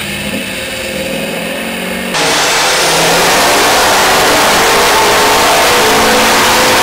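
Compound-turbocharged 6.4-liter Power Stroke V8 turbo diesel in a Ford F-250 running steadily on a load cell chassis dyno, then, about two seconds in, going suddenly to full throttle for a dyno power pull. It is loud, with the engine note climbing slowly as it pulls against the dyno's load.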